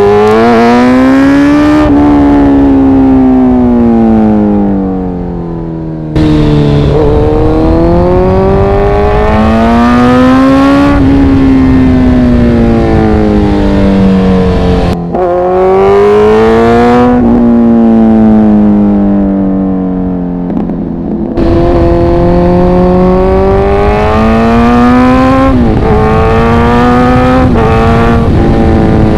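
Kawasaki Z900 inline-four motorcycle engine and exhaust under way, its pitch rising and falling in long sweeps as the throttle is opened and eased. The note changes abruptly three times, at gear changes.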